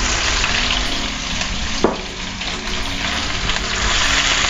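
Freshly added sliced onions frying in hot oil in a steel wok: a steady sizzling hiss. A single sharp knock sounds about two seconds in.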